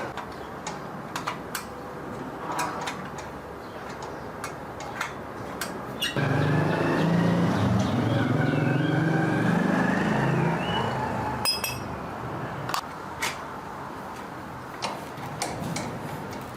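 Scattered sharp metallic clinks and taps of hand tools on bicycle parts. A louder stretch of low, wavering hum runs from about six to ten seconds in.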